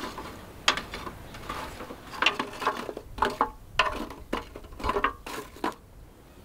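Metal tongs shifting hollow charcoal briquettes about in a rusty steel brazier: an irregular string of hard clinks and knocks of charcoal against charcoal and the metal box, stopping near the end.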